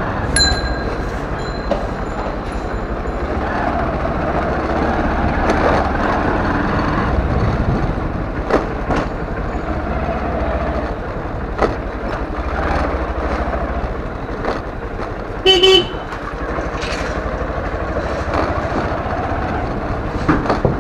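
Motorcycle running at low speed through a narrow street, with a horn sounding once, briefly, about three quarters of the way through. A bell rings near the start.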